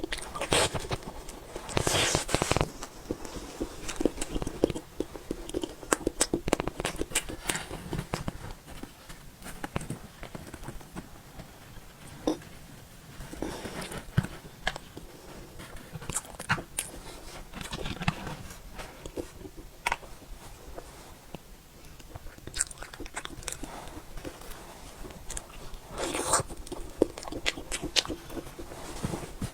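Close-miked eating sounds: a Japanese cream cake being bitten and chewed, heard as scattered wet mouth clicks and smacks.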